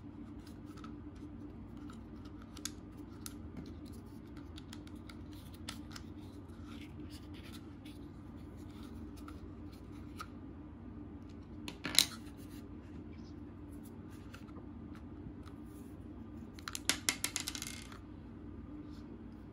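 Plastic parts of a take-apart toy dinosaur being handled and fitted together: scattered small plastic clicks and taps as the tail goes on and plastic screws are pushed in. There is one sharp click about twelve seconds in and a quick rattle of clicks near the end.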